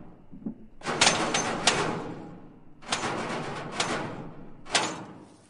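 A series of loud clattering bangs, each ringing away over about a second, in three bunches.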